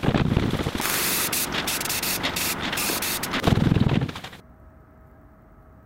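Aerosol spray-paint can hissing in one long spray of about four seconds, flickering as the nozzle is worked, with a low thump at the start and another near the end.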